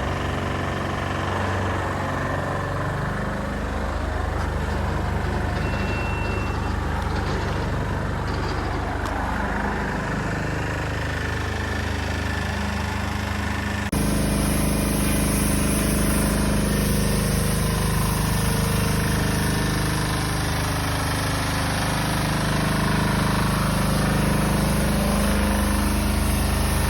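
An engine runs steadily, its pitch slowly dipping and rising in places. The sound changes abruptly about fourteen seconds in and runs on steadily after.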